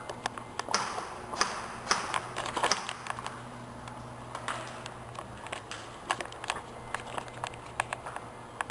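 Irregular sharp clicks and snaps, in quick clusters during the first three seconds and scattered singly later, over a faint steady hum.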